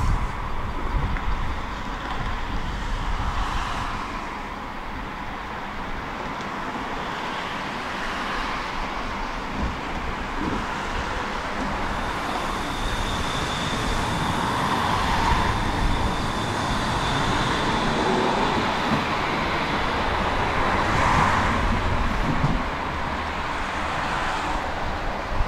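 Articulated low-floor electric tram at a stop, humming at standstill and then pulling away in the second half, over steady city traffic noise. A thin, steady high whine runs for several seconds in the middle, while the sound grows louder.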